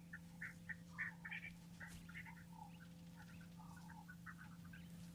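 Faint wild ambience of many short, high calls from small animals, several a second and irregular, over a low steady hum.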